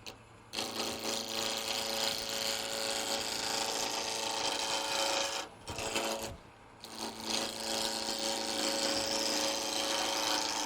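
Lathe turning: a gouge cutting a spinning black walnut blank, rounding it down and forming a tenon, a steady scraping hiss over the lathe's hum. The cut breaks off briefly just after the start and again for about a second past the middle.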